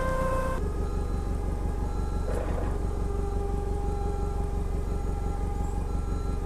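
Forklift engine running as the forklift moves, with a steady whine over it that drops to a lower pitch about half a second in.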